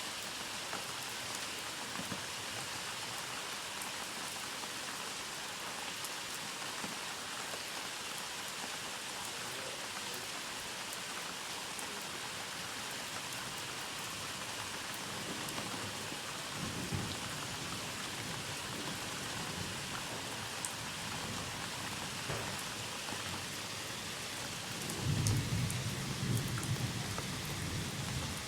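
Steady rain falling, with thunder rumbling low partway through and a louder roll of thunder near the end.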